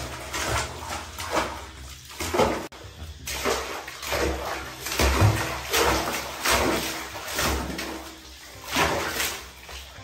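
Water splashing in a plastic tub as a baby monkey bounces up and down in it, a splash about once a second.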